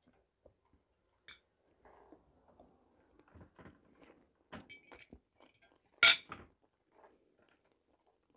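Steel fork clinking on china plates while cutting boiled potato, with quiet chewing between the clinks. A single sharp clink about six seconds in is the loudest sound.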